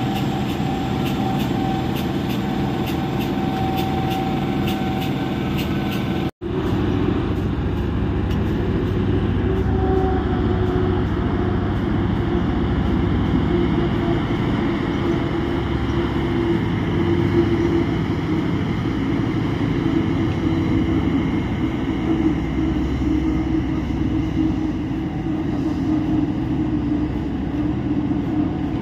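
Heavy mining haul trucks' diesel engines running steadily as the trucks drive by on a dirt haul road. The sound cuts out for an instant about six seconds in, then another truck's engine carries on, swelling and easing slightly.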